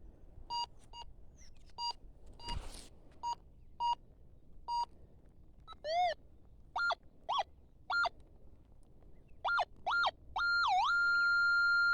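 Metal detector's electronic target tone: a string of short, even beeps, then several beeps that swoop up and down in pitch, then a long steady tone starting near the end. The tone signals a buried metal target under the coil.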